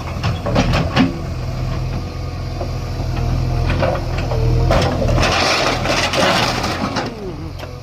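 Bulldozer's diesel engine running with a steady low drone, with a louder rush of noise for about a second and a half around five seconds in.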